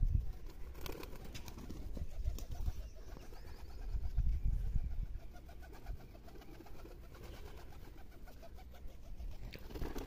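Domestic pigeons cooing, a run of repeated calls in the second half, over a low wind rumble on the microphone.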